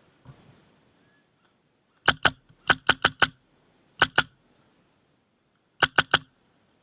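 An airsoft rifle firing single shots in quick groups of two to four, sharp snapping clicks with silence between the groups.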